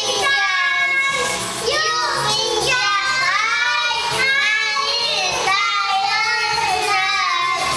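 A young boy singing into a corded microphone, a high child's voice carrying a continuous melody.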